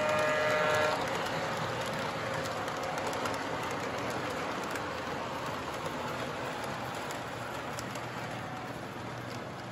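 Model train running on its track: a steady rolling rumble of the wheels on the rails, with the locomotive's horn sounding briefly at the start.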